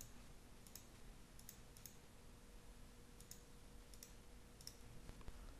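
Faint computer mouse clicks, about eight of them spaced unevenly, over a low steady hum.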